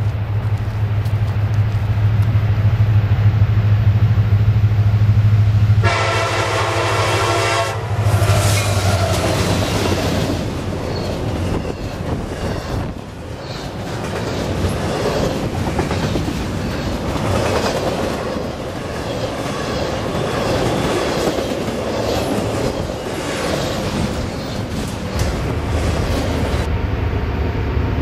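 A deep diesel drone grows louder as a freight train approaches. Then a train horn sounds once for about two seconds. A double-stack intermodal freight train rolls past close by, its wheels giving a steady rushing rumble with rapid clicking.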